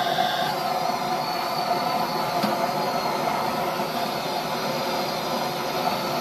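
Hand-held gas torch burning steadily, its flame played onto a block of aluminium: a continuous hissing roar with a faint, thin high whistle in it.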